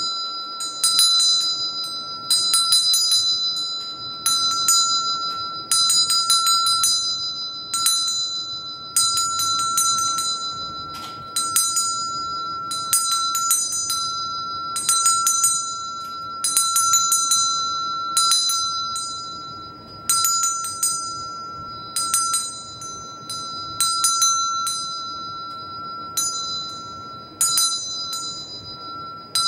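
A small brass hand bell shaken in short bursts of several clapper strikes, about once every one to two seconds, its clear ring carrying on and fading between bursts.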